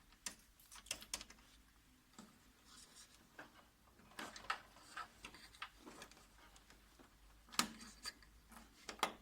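Scattered clicks, knocks and short rubbing as the plastic covers and parts of a Toshiba 2303A copier are handled during disassembly, with two sharper knocks near the end.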